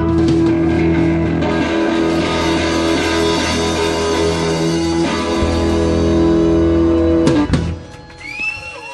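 Live rock band of electric guitar, bass and drums holding out the song's final chord, which stops sharply about seven and a half seconds in. A quieter stretch follows, with a high gliding tone near the end.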